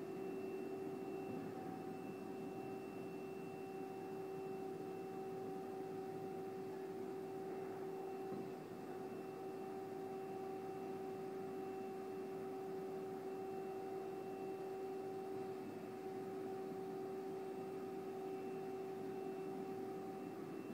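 Heavy three-phase concrete floor grinder running steadily: a constant machine hum with a fixed whine over an even grinding hiss.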